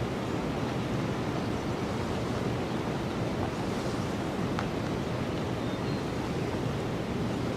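Steady rushing outdoor noise from wind and moving water, with one faint click about four and a half seconds in.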